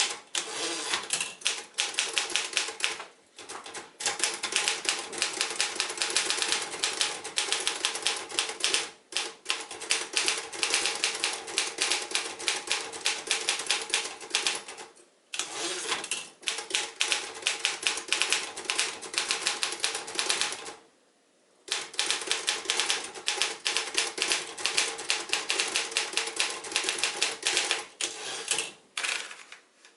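1947 Royal KMM manual typewriter (elite type) being typed on: rapid runs of key and typebar strikes clacking against the platen, broken every few seconds by brief pauses.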